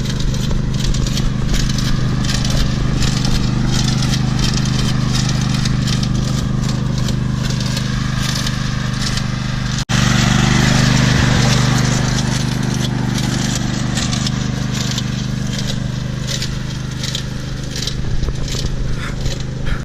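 Small petrol engine running at a steady speed, with crackling noise over it. The sound breaks off and resumes about halfway through, where the footage is cut.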